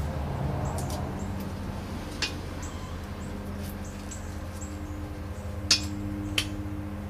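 Work on a transmission: a few sharp metal clinks of tools on the case, the loudest two near the end, over a steady low hum. Short high chirps repeat throughout.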